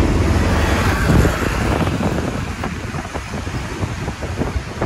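City road traffic noise with wind buffeting the microphone. The rush is loudest about a second in, then eases off.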